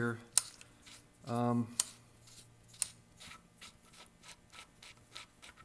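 A threaded metal access cap being unscrewed by hand from a 1985 Honda XR600's left crankcase cover. A few sharp clicks are followed by a run of light ticks, about four a second.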